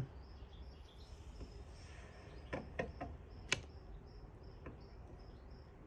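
A few light clicks as a hot-stapler plastic welder's heated staple is pressed and melted into a cracked plastic tailgate, over a faint high chirp repeating two to three times a second.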